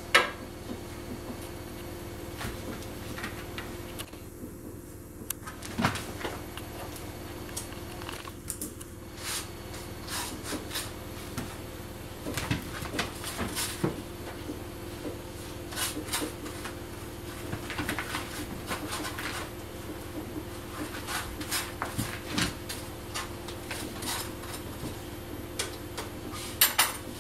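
Kitchen clatter from breakfast being made at the counter: dishes and utensils knocking and clinking, with the odd cupboard or drawer sound, over a steady faint hum.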